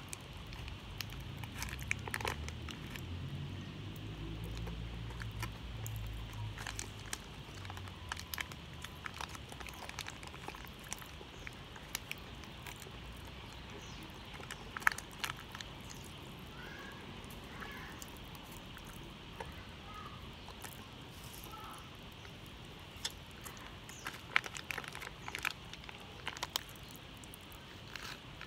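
Scattered small crinkles and clicks of a plastic candy wrapper being handled, quiet throughout. A low rumble runs under the first several seconds and fades.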